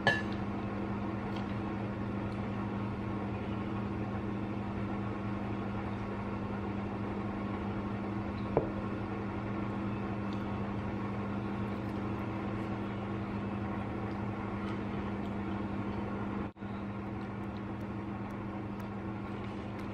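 Steady mechanical hum of a running household appliance, with one short click about eight and a half seconds in and a momentary break in the sound later on.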